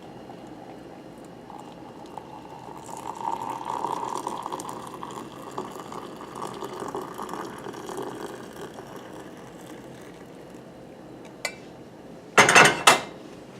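Hot water poured into a tea mug: a steady filling stream that swells over the first few seconds and then fades away. Near the end, two loud sharp knocks.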